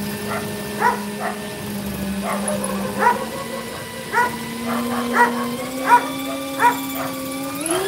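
A dog barking repeatedly in short, sharp barks, about one a second. Underneath is a steady droning tone that steps up in pitch and climbs sharply near the end.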